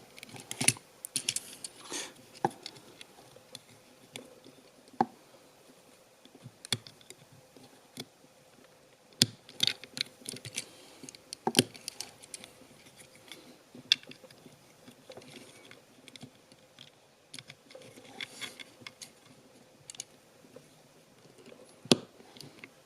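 Plastic clicks, taps and rustles of a Transformers action figure's parts being handled and worked, irregular, with a few sharper snaps scattered through.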